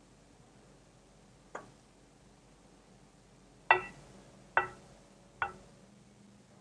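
A metal spatula clinking against a ceramic bowl while mousse is scraped off it: four short ringing clinks, faint at first, the second the loudest.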